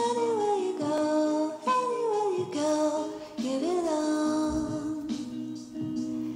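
Background music: a singing voice carrying a slow, gliding melody over a soft accompaniment.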